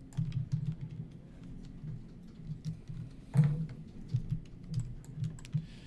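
Irregular light clicking and tapping from computer input while working in sculpting software, with one louder knock about three and a half seconds in.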